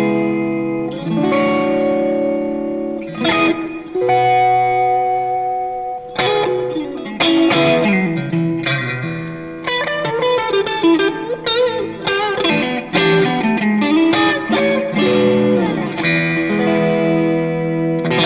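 Fender Stratocaster Deluxe Roadhouse electric guitar played on its neck and middle pickups with the S-1 switch engaged, which brightens the tone. It plays ringing chords, then a single-note lead line with string bends and vibrato in the middle, and chords again near the end.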